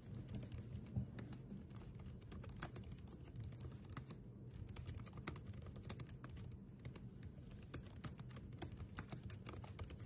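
Rapid, irregular light clicking over a low steady hum.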